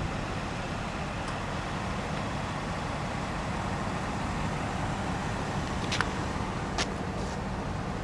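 Engines of a line of stopped trucks and cars idling in a traffic queue: a steady low rumble. Two sharp clicks come about six and seven seconds in.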